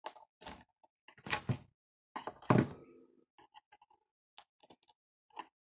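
Small clicks and knocks of hands working at a cracked iPad screen on a tabletop as the broken glass is pried and picked at, with a louder knock about two and a half seconds in.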